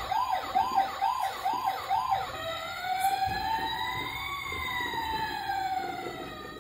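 Electronic siren of a toy police ride-on car: a quick warble, about two cycles a second, then after about two seconds a slow wail that rises and falls once.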